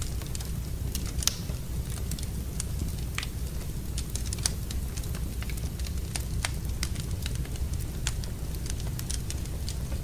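Wood fire in a fireplace crackling: irregular sharp pops and snaps over a steady low rumble, with two louder pops about a second and four and a half seconds in.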